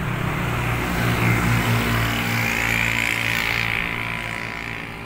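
A vehicle passing on the road, its engine hum and tyre noise growing louder in the first second and fading away over the last second and a half.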